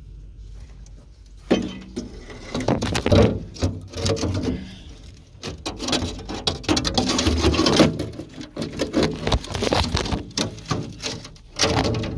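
Knocks, scrapes and rattles of a loose cover panel being handled and fitted back in place, starting with a sharp knock about a second and a half in and continuing as an irregular clatter.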